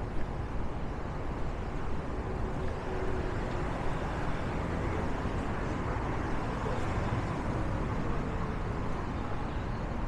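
Steady city street traffic noise: a continuous low rumble of cars and other vehicles passing.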